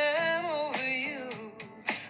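Song playing: a sung melody over instrumental accompaniment, dipping briefly in loudness near the end.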